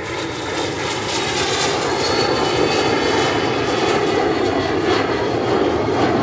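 Jet noise from a U-125A search-and-rescue jet's twin rear-mounted turbofans as it flies past in a banking climb. A steady rush grows louder about a second in, with a faint high turbine whine over it.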